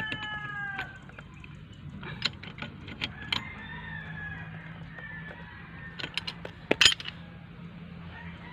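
A rooster crowing in the background, one crow trailing off in the first second and fainter crows later, over sharp metallic clinks and taps of a hand tool working on metal pipe fittings; the loudest clinks come just before seven seconds in.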